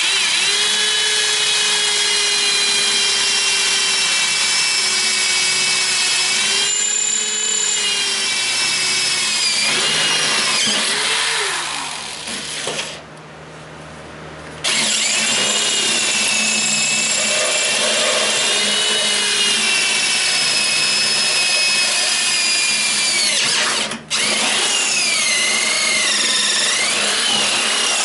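A power drill runs in long stretches, its motor whine sagging and wavering in pitch as it works under load. It stops for about two seconds near the middle, starts again and breaks off briefly once more about 24 seconds in.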